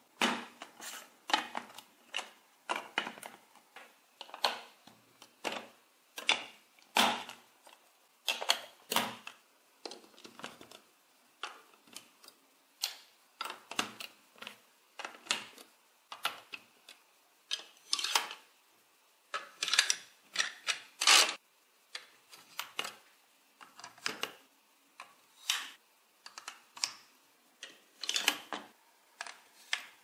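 Large plastic building bricks clicking and clacking as they are pressed together and handled on a table: a steady run of sharp plastic clicks, one or two a second.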